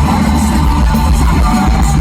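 Live rock band playing loud, with electric guitar over a heavy, steady bass.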